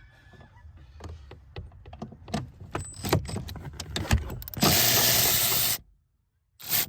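Metal clicks and knocks of a socket wrench on a long extension working a bolt loose, then a loud rushing noise about a second long that cuts off suddenly, and a short burst near the end.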